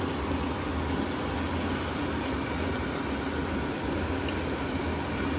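Stir-fried mixed vegetables and tofu sizzling in a hot wok: a steady hiss with a few faint crackles, over a constant low hum.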